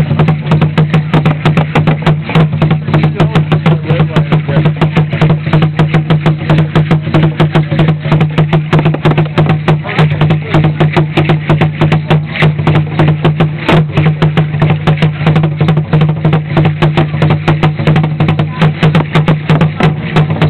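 Huehuetl, the tall upright Aztec drum, beaten with two sticks in a steady, fast dance rhythm of about four strokes a second, with the drum's low ring carrying under the strokes.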